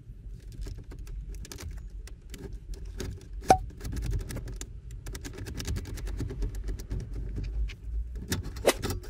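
Pioneer car stereo head unit being worked loose and pulled out of the dashboard: repeated small plastic-and-metal clicks and rattles, with one sharp click about three and a half seconds in, over a low steady rumble.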